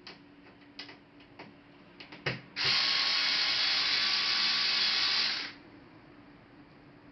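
A few sharp clicks of hardware being handled, then about three seconds of a loud, rapid, ratchet-like mechanical rattle that stops suddenly.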